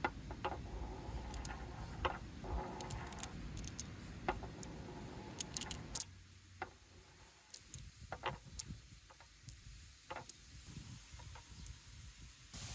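Balls rolling along a park-bench marble run: a steady rolling rumble with sharp clicks for about six seconds, then quieter scattered clicks and knocks as the balls tap along the course.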